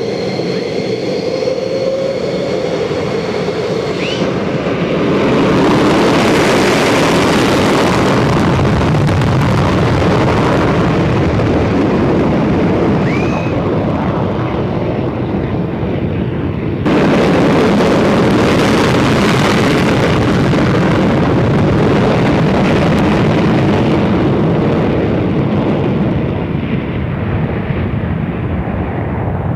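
An F-15 Eagle's twin Pratt & Whitney F100-PW-220 turbofans, first a high steady turbine whine, then a loud afterburner roar that builds about five seconds in for a takeoff. The roar jumps suddenly louder about two-thirds of the way through and eases off near the end.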